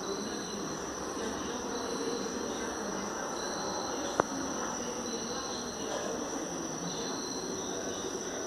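Night insects, cricket-like, chirping: a steady high trill with a shorter chirp repeating about every second and a half. A single sharp click sounds about four seconds in.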